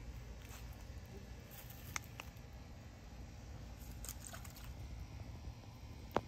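Faint night ambience beside a koi pond: a steady low hum, with a few soft clicks scattered through and one sharp click just before the end.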